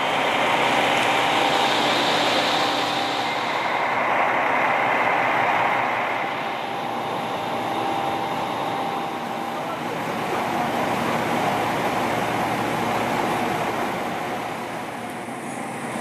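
Engines of a JR Shikoku 2000-series diesel express railcar running, a steady rumble, with faint voices in the background.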